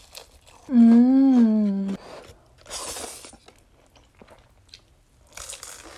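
A woman eating: a long hummed "mmm" about a second in, then small crunching and chewing clicks from crispy fried chicken, with two short slurps of spicy noodles, one about halfway through and one near the end.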